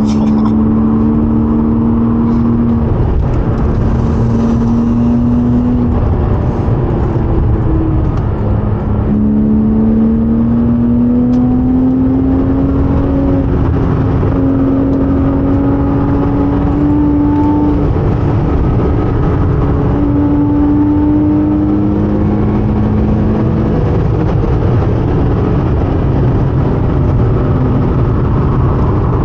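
Porsche 987.2 Cayman S's 3.4-litre flat-six running hard under acceleration at track pace. Its pitch climbs slowly through each gear and drops back at each upshift, over a steady low road roar.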